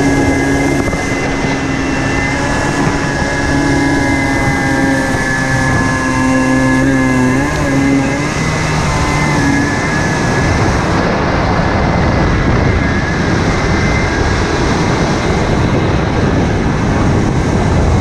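Two-stroke engine of a 1987 Kawasaki X2 stand-up jet ski running at a steady speed under heavy rushing water and wind noise. About eight seconds in, the engine note wavers and sinks into the steady rush.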